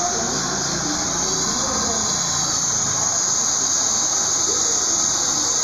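Handheld hair dryer running steadily, a constant high-pitched rushing hiss.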